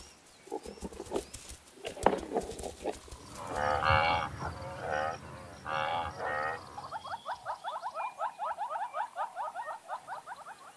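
Wild game animal calls: a few scattered knocks, then three or four drawn-out lowing calls about halfway through, then a fast run of short rising call notes, about five a second, to the end.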